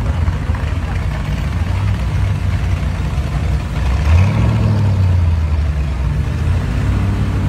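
V8 engine of a C3 Corvette Stingray rumbling at low speed as the car rolls past, with a short rev about four seconds in.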